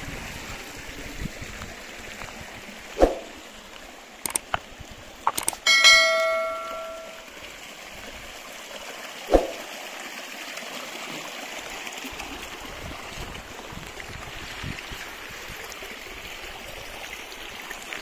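Small mountain stream running steadily over stones, with a few sharp knocks scattered through. About six seconds in, a metal object rings once like a small bell and fades over a second or so.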